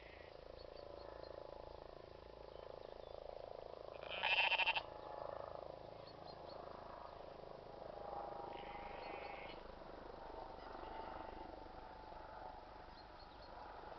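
Castlemilk Moorit sheep bleating: one loud bleat about four seconds in and a fainter, shorter bleat near the middle, over a steady faint background hum.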